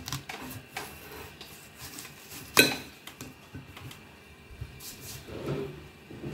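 Kitchen knife cutting apples into pieces on a plate: small scattered clicks of the blade through the fruit and against the plate, with one sharp click about two and a half seconds in.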